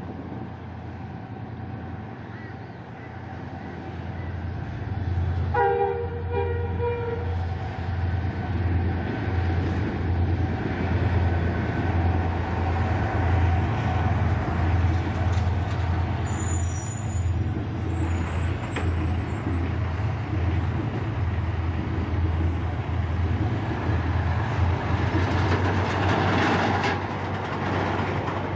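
Diesel locomotive engine running with a steady, pulsing low throb as the heritage Queensland Rail locomotive 1461 moves off, growing louder after a few seconds. A short horn toot sounds about six seconds in.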